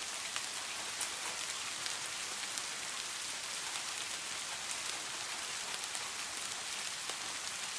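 Steady rain falling in a forest, an even hiss with many separate drops pattering close by.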